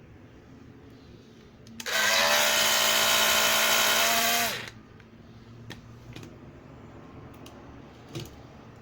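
Tescom TID960TW hair dryer run for about three seconds: its fan motor whines steadily over the rush of air, then it is switched off and the whine sags as the fan spins down. The fan motor is faulty and makes an abnormal noise.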